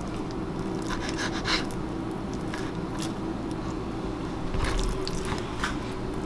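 Thin fillet knife slicing pin bones out of a raw white crappie fillet on a bamboo cutting board: soft, scattered scrapes and wet squishes, over a steady low hum.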